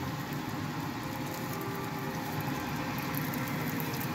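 Hot oil sizzling and bubbling steadily around large dough buns deep-frying in a wok, with fine crackling.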